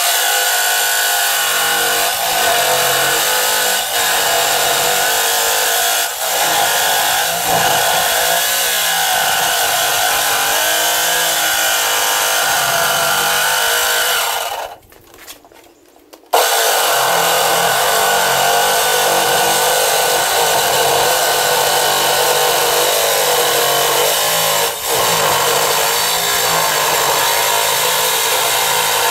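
Corded jigsaw cutting a speaker hole in the sheet-steel lid of an ammo can, running loud and steady. It stops for about two seconds midway and then starts cutting again.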